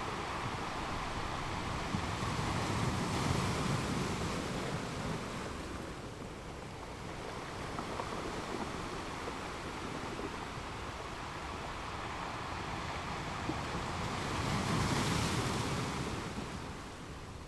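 Sea waves breaking on a beach, a steady wash of surf that swells twice: one louder wave a few seconds in and another near the end.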